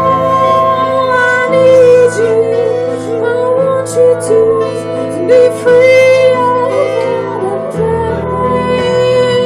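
Live band playing a slow song: a woman singing over guitar and sustained low notes.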